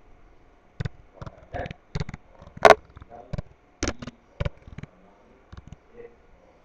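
Typing on a computer keyboard: a run of irregular key clicks starting about a second in, with one louder stroke near the middle, thinning out to a few faint taps after about five seconds.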